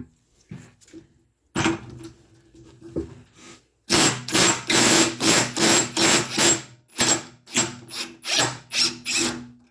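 Ryobi P238 18-volt impact driver on its top speed, backing out screws. Its motor spins briefly, then from about four seconds in the impact mechanism hammers loudly in repeated pulsing runs, with short pauses, until near the end.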